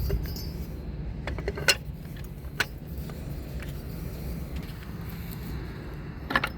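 A few sharp metallic clicks and knocks, the loudest about a second and a half in and another pair near the end, over a steady low rumble.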